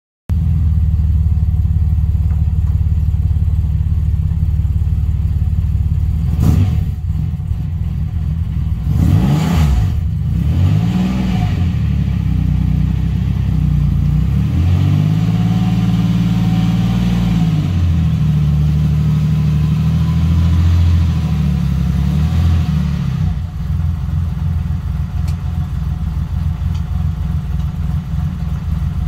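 TVR Tuscan's straight-six engine running, blipped up and down a couple of times, then held at higher revs for a few seconds before settling back to a lumpy idle for the last part, as the car creeps forward.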